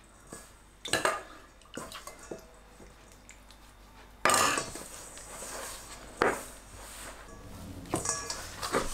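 Kitchen utensils knocking and clinking against a mixing bowl while water is spooned in and dough is mixed by hand. There are a few sharp knocks early, then a louder clatter about four seconds in, with more knocks after it.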